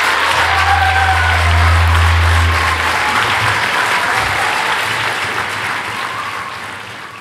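An audience applauding steadily, with a deep low hum for the first few seconds; the applause fades out near the end.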